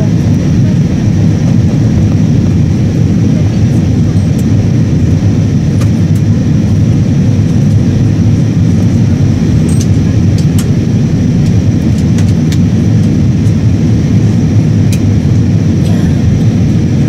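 Steady cabin noise of an Airbus A319-111 in flight: an even, loud low rumble of its CFM56 jet engines and the airflow over the fuselage, with a few faint ticks.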